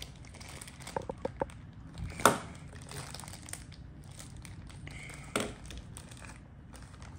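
Thin clear plastic bag crinkling as it is handled and pulled open to free a small toy ball, with scattered crackles and a sharper click about two seconds in.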